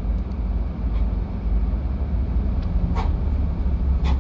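Steady low road and engine rumble heard from inside a moving car's cabin, with two brief clicks about three and four seconds in.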